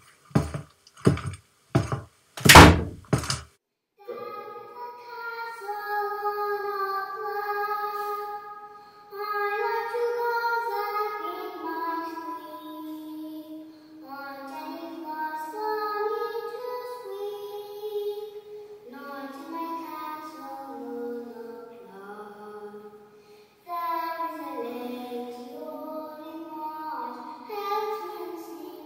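A quick run of hard thumps in the first three seconds, the last ones loudest, then a song sung in a high voice with music, pausing briefly twice.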